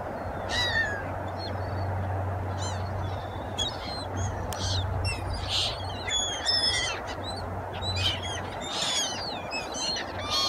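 A flock of gulls calling, many short cries overlapping, over the steady wash of breaking surf.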